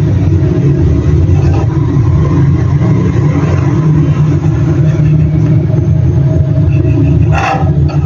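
A loud, steady low rumble like a motor or fan running, with one brief knock near the end.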